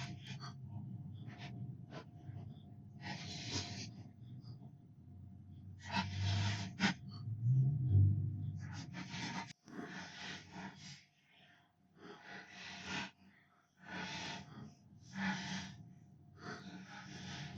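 A person breathing close to the microphone: short, noisy breaths every one to two seconds, over a faint steady hum.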